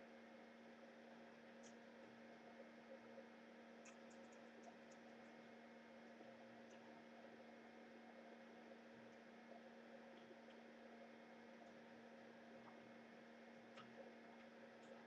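Near silence: a faint, steady electrical hum, with a few faint ticks.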